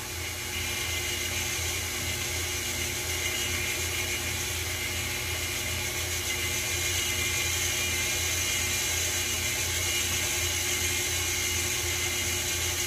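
KitchenAid Ultra Power tilt-head stand mixer running at a steady speed, its beater turning through cream cheese batter in a stainless steel bowl: an even motor whir over a low hum.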